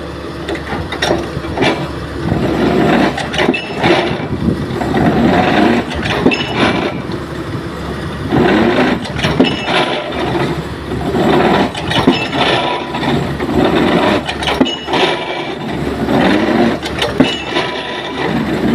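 Pile driver's hammer striking a precast concrete pile again and again, a heavy blow roughly every second or so, over the steady running of the rig's engine.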